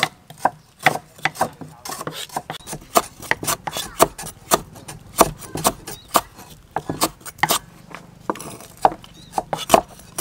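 Cleaver slicing lemongrass stalks on a thick wooden chopping board: a quick, uneven run of knocks, about three or four a second.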